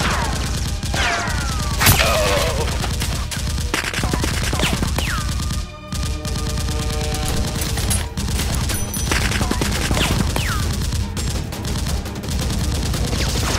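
Rapid, continuous automatic gunfire sound effects, with several falling whistle-like tones over the shots.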